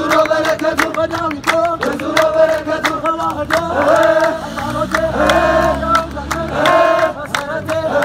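Group of men chanting a Buhe song together over a steady beat of sharp strikes, about three to four a second, with one long held note near the middle.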